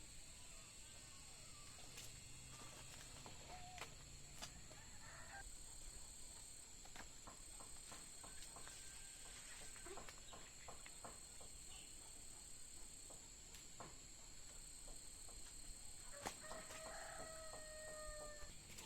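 Faint farmyard sound: a rooster crows once near the end over a steady high-pitched drone, with scattered small clicks and taps.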